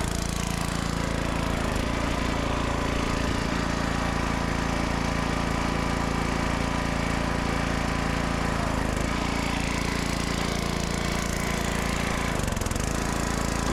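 Chainsaw running and cutting wood, its engine note shifting about nine seconds in and again near the end.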